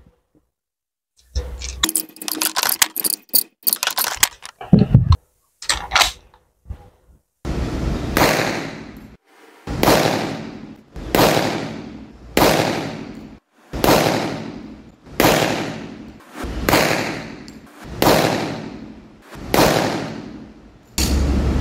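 Clicks and clacks of a .45 pistol being handled, then a slow, evenly spaced string of about nine pistol shots, one every second and a half, each trailing off in a long echo.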